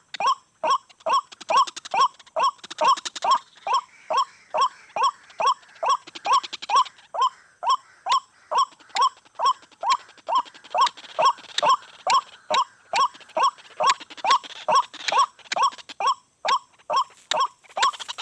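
White-breasted waterhen (ruak-ruak) calling, a long unbroken series of short croaking notes repeated evenly about two to three times a second.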